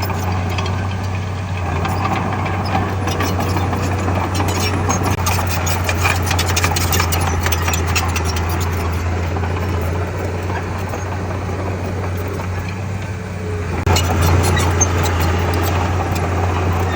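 Diesel engine of heavy earthmoving machinery running steadily, with a low drone and bouts of rattling and clanking; it grows louder about 14 seconds in.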